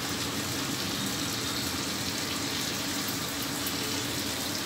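Fish curry boiling hard in a pan on an induction cooktop: a steady hiss and bubbling over a faint steady hum.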